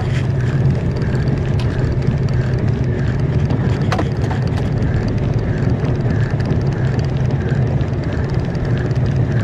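Small fishing boat's engine running steadily with a low, even drone.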